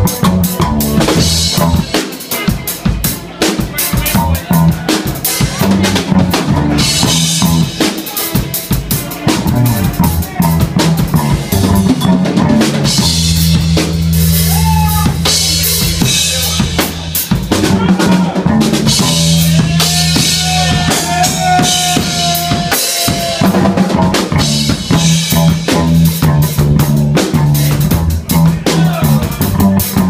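A live band playing an instrumental jam: drum kit with kick, snare and rimshots, a bass guitar holding low notes, and electric guitar. About two-thirds of the way through, a long high note is held for a few seconds.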